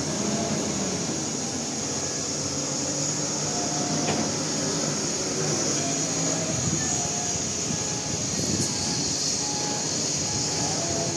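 UD Quester tractor unit hauling a loaded flatbed trailer slowly past, its diesel engine running with a steady rumble, over a constant high hiss.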